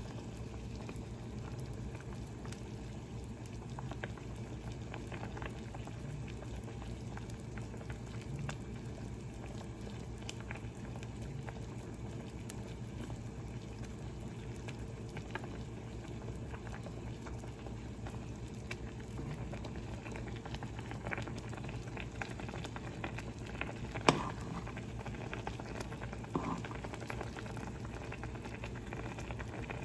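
Noodle broth with an egg bubbling steadily at a simmer in a small pan over a stove flame, with a steady low hum under it. A single sharp knock sounds near the end, with a lighter one a couple of seconds later.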